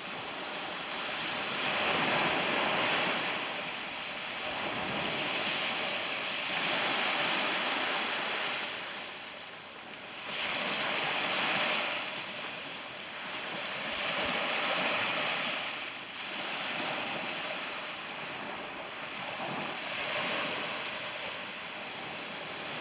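Small sea waves breaking and washing up the beach, a steady surf hiss that swells and falls back every few seconds.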